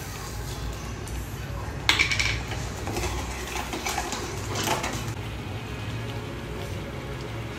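Steel spoon and bowl clinking and scraping against a steel pan while sugar is stirred into thick mango puree, with a sharp ringing clink about two seconds in and a few lighter ones later.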